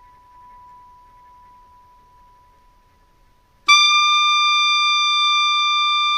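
Background music: a faint held tone, then a little over three and a half seconds in a loud, bright held note comes in suddenly and sustains.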